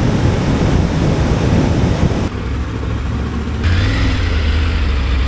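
Motorcycle ridden at speed with heavy wind noise over the Triumph Tiger 900 Rally Pro's three-cylinder engine. About two seconds in it cuts to the bike rolling slowly, its engine running low and steady.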